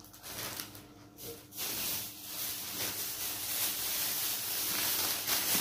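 A steady hiss that sets in about one and a half seconds in.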